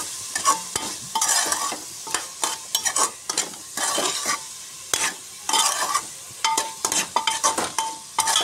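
Metal spoon scraping and stirring a masala of onion, ginger-garlic paste and spices as it fries in oil in a metal pressure cooker, with sizzling underneath. The strokes come about twice a second.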